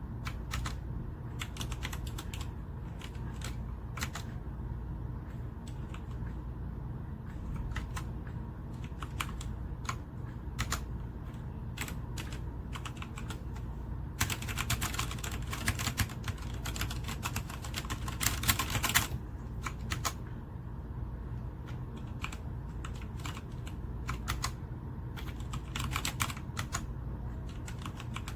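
Typing on a Redragon K617 Fizz 60% mechanical keyboard: scattered keystrokes, with a fast, dense run of typing from about halfway through lasting several seconds, then slower keystrokes again.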